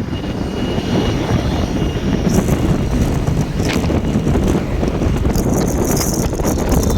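Steady low wind rumble on the microphone, mixed with road traffic noise.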